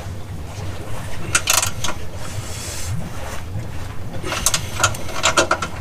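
Light metallic clicks and clinks in two short clusters, one about a second and a half in and another in the second half, as a bolt on a Focus ST rear motor mount is handled and threaded by hand. A steady low rumble runs underneath.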